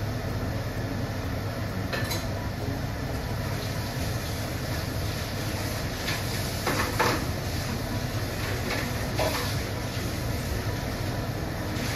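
Steady low kitchen rumble from the stovetop, with a few light clinks and knocks of metal cookware: one about two seconds in, a louder pair around seven seconds, and another near nine seconds.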